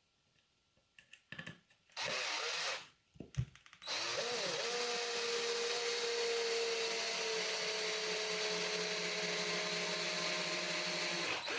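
Power drill driving a screw: a short burst about two seconds in, then a long steady run of about seven seconds, its pitch sagging slightly as the screw pulls two wooden parts together, stopping just before the end. A few light knocks come before it.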